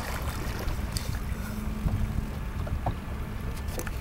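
Steady wind rumble buffeting the microphone aboard a small fishing boat, with a few short knocks.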